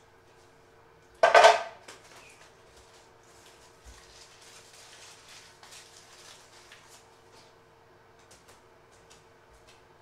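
Dishes clattering loudly once, about a second in, then faint rustling and small knocks over a steady faint hum.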